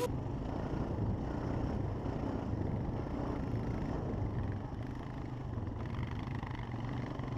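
Vehicle engine running steadily at low revs, a low rumble with road or wind noise and no rise or fall in pitch.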